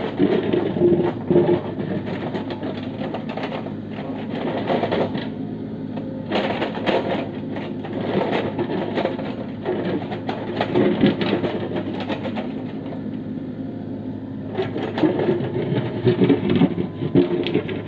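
Kubota U30 mini excavator's diesel engine running steadily, with repeated stretches of clattering and scraping as it cuts into rock.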